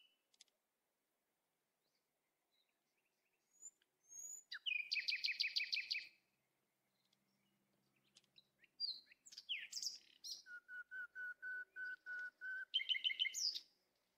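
Songbirds singing: a fast trill of rapidly repeated high notes about four seconds in, scattered short calls, then a run of evenly spaced single-pitch notes at about four a second, and another quick trill near the end.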